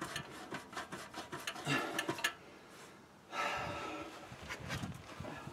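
Steel exhaust pipe and muffler clinking and scraping as they are twisted and worked into position in their clamps. A quick run of sharp metal clicks comes first, then a longer rubbing scrape from about three seconds in.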